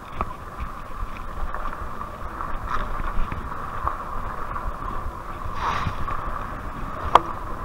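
Rad Rover electric fat-tire bike ridden over a rough dirt trail, with wind buffeting the microphone and the bike rattling as it bumps along. There is one sharp knock near the end.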